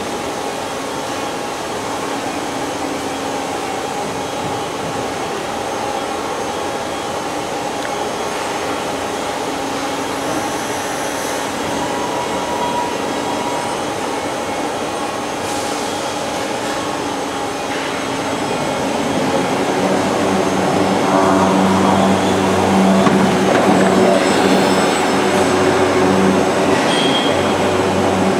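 Automated overhead gantry of a pipe storage system travelling on its rails: steady running noise of drive motors and wheels with a constant hum. It grows louder about two-thirds of the way through, the hum becoming stronger.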